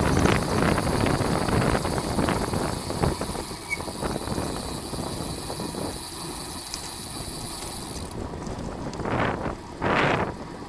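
Wind rushing over the microphone of a camera on a road bicycle in motion, easing off over the first few seconds, with scattered mechanical clicks from the bike. A steady high hiss cuts off suddenly about eight seconds in, and two short louder bursts of sound come near the end.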